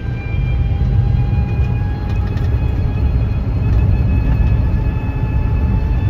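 Car cabin noise while driving slowly: a steady low rumble of road and running noise, with a faint whine that rises slowly in pitch as the car gathers speed.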